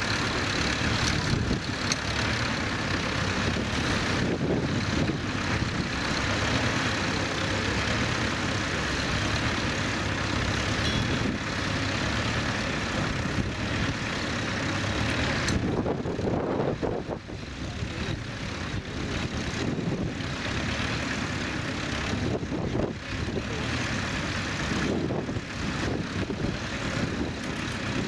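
A vintage tractor engine running steadily under load as the tractor pulls a mounted plough through the soil.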